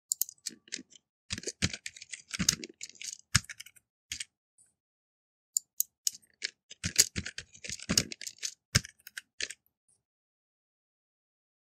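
Typing on a computer keyboard: rapid keystrokes in two bursts, the second starting about five and a half seconds in and stopping near nine and a half seconds.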